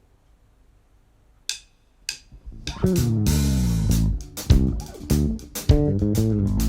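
Near quiet, then two sharp taps, then plucked-string music starts about two and a half seconds in: guitar and bass notes with percussive strikes.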